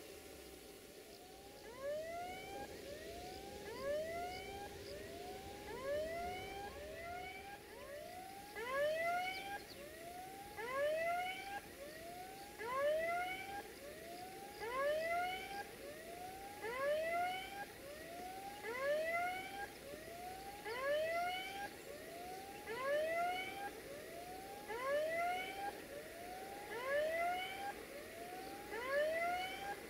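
Level-crossing warning alarm sounding: short electronic whoops that rise in pitch, repeating in a steady rhythm. It starts about a second in.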